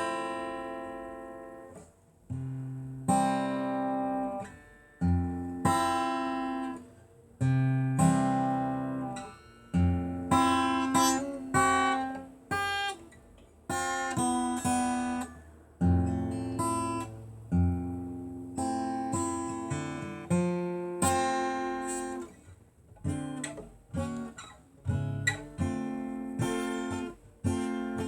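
Acoustic guitar strumming chords, each chord ringing out and fading before the next, with no singing.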